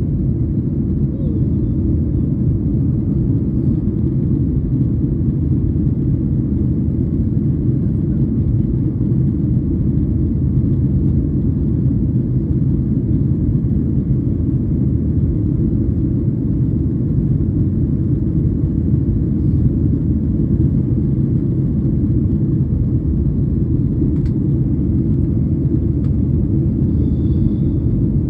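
Steady low rumble of a jet airliner's engines and rushing air, heard inside the cabin while the plane climbs after takeoff.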